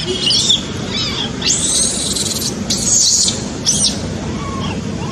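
Baby macaque crying in a run of high-pitched squeals and screeches, the longest starting about a second and a half in and lasting about a second, over a steady low rushing noise.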